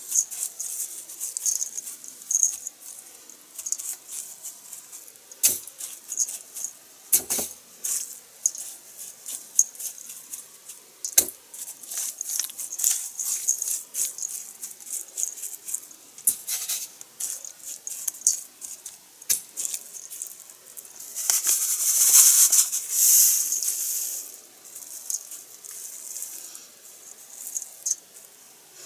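Dry panko breadcrumbs rustling and crackling as bare hands press them onto egg-coated pieces of chicken breast in a stainless steel bowl, with scattered light knocks against the bowl. The rustling grows louder and busier for a few seconds about two-thirds of the way through.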